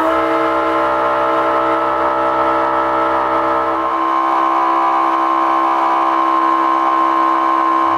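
Electric fuel polishing pump of a boat's diesel system running with a steady, loud whine, circulating diesel through the Racor filters; a lower hum underneath drops away about halfway through.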